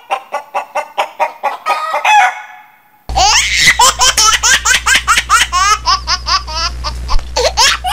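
Chicken clucking in quick, short calls for about two seconds. Then, after a brief gap, loud high-pitched laughter in rapid repeated bursts.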